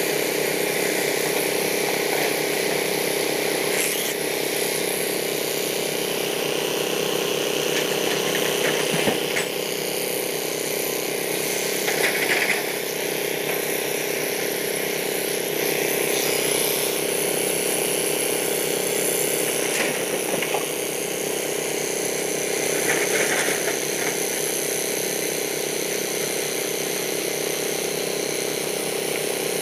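Hyundai 215L crawler excavator's diesel engine running steadily as the machine digs, with occasional clanks and rattles of rock.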